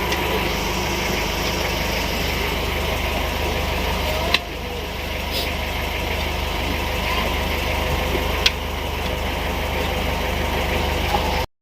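An engine idling steadily, with an even low pulse, and two sharp clicks about four and eight seconds in. It cuts off abruptly near the end.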